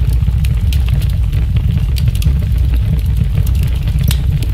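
A burning airliner roaring as it comes down: a deep, steady rumble with scattered crackles.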